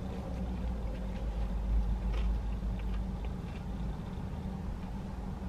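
Steady low hum of a car idling, heard from inside the cabin, with a brief swell about two seconds in. A few faint chewing sounds come through above it.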